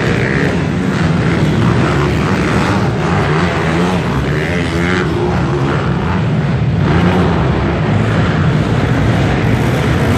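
Several pit bike engines racing together, revving up and down over one another as the bikes ride the jumps and corners.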